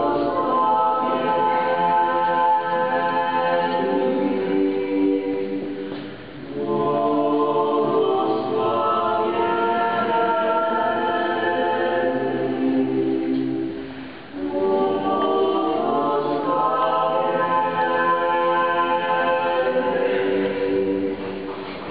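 A choir singing a hymn in long held phrases, breaking off briefly about six and fourteen seconds in.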